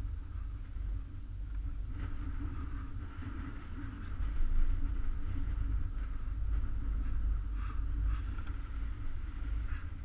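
Chairlift in motion heard from the chair: a steady low rumble, louder from about four seconds in, with a few clicks near the end as the chair reaches a lift tower.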